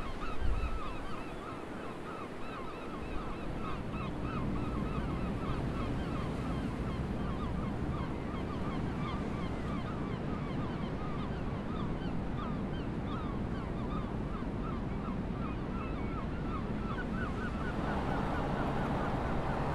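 A crowd of birds calling, many short honking calls overlapping several times a second, over a low steady engine rumble from the passing ferry. Near the end the calls fade and a louder, steady ship's engine hum comes up.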